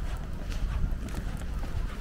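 Wind noise on the microphone, with scattered short clicks and taps.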